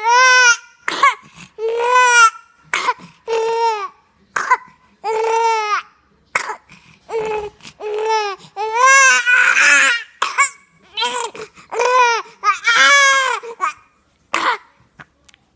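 Repeated coughing in a long run of short bursts with brief pauses, each cough high-pitched and voiced, almost cry-like. One longer, rougher fit comes about nine seconds in.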